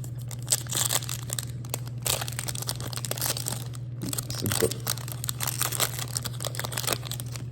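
Trading-card packaging being torn open and handled: irregular crinkling and tearing of cardboard and plastic pack wrappers, with a few sharper snaps, over a steady low hum.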